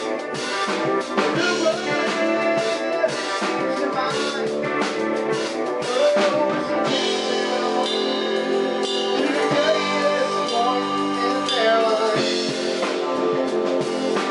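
A small band playing live together: drum kit with cymbals, electric guitar and electric bass.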